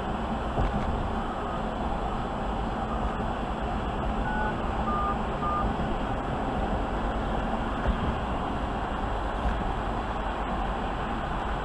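Steady road and engine noise of a pickup truck driving at highway speed, heard from inside the vehicle. Three or four short electronic beeps sound between about four and six seconds in.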